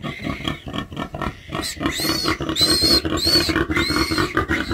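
Mulefoot pigs, a sow with her newborn piglets: a rapid, rhythmic run of low grunts, joined about two seconds in by four short high squeals.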